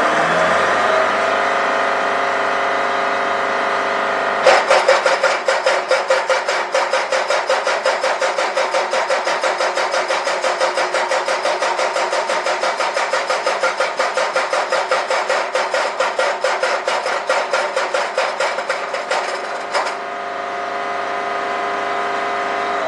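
A machine running steadily. A fast, even pulsing starts sharply about four seconds in and stops near the end.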